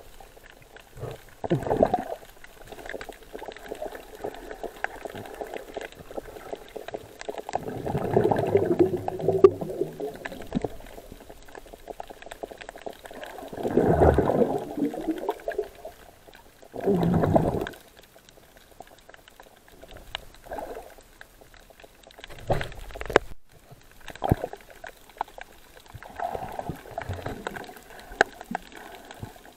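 Sea water sloshing and splashing in irregular, dull surges, several seconds apart, with quieter lapping between.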